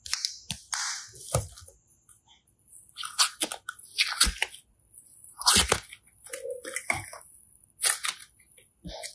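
Slime being squeezed and poked by hand, giving irregular crackles, pops and squishes in uneven clusters.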